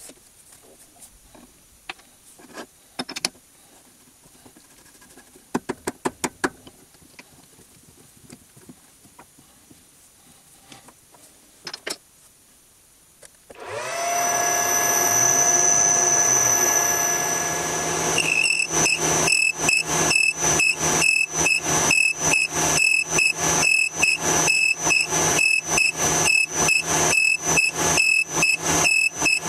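Small metal clicks and clinks as a steel part is fitted into a metal lathe's chuck, then the lathe starts about halfway through, its whine rising as it spins up. After a few seconds of steady running, the sound pulses rhythmically, about three beats a second.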